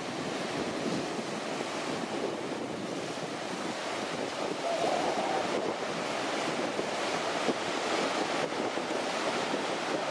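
Ocean surf washing onto the beach, heard as steady noise, with wind blowing across the microphone.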